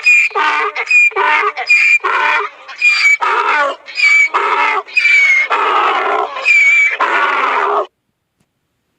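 An animal calling in a rapid series of about a dozen short calls, stopping about eight seconds in.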